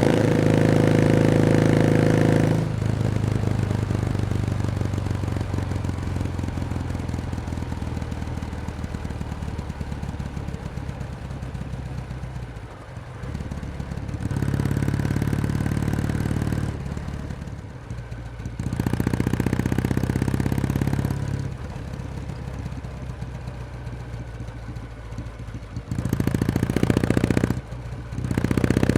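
Kawasaki W1S vertical-twin motorcycle engine on the move: pulling loud for the first couple of seconds, then throttle eased and running softer, with several short spells of acceleration in the second half.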